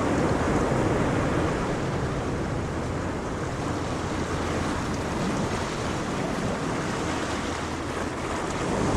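Ocean waves washing on a shore in a continuous surf, easing slightly mid-way, with some wind noise on the microphone.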